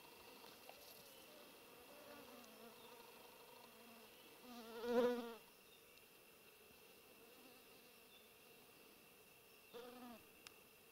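A flying insect buzzing close past the microphone, its wavering pitch swelling loud about five seconds in, then passing again briefly near the end.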